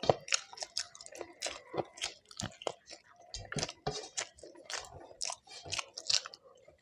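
A person chewing and eating food close to the microphone: a quick, irregular run of short wet mouth clicks and bites, several a second.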